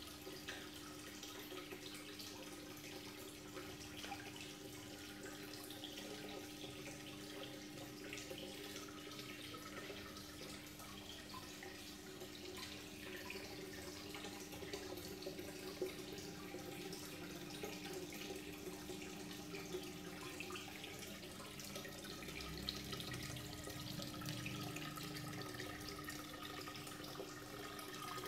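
Aquarium filter outflow pouring a steady stream into a turtle tank, a continuous splashing trickle, with a steady low hum underneath.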